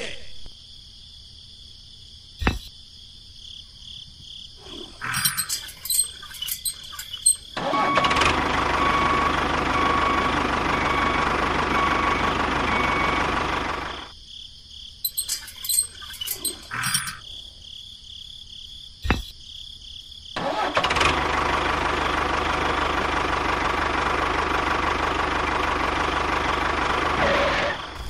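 Engine sound for a toy tractor: a few sharp clicks as it starts, then steady running for about six seconds. The same start and run happens twice, with quiet spells and single clicks in between.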